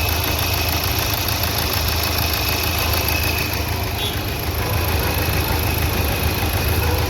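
Nissan Terrano's 1.5-litre dCi four-cylinder diesel engine idling steadily after its injectors were serviced and a failed injector coil replaced. The misfire and tak-tak knocking it had before are gone, and it runs stable and quiet.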